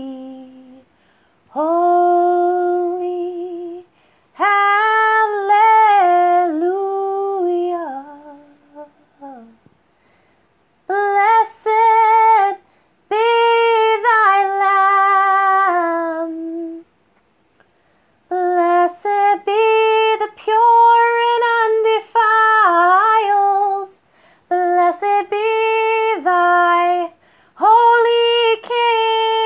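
A woman singing unaccompanied: long, held, gliding phrases with short pauses between them.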